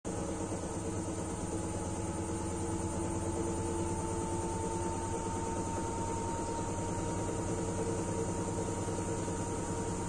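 Front-loading washing machine in its spin cycle: a steady hum from the drum and motor with a whine on top that rises slightly in pitch a few seconds in.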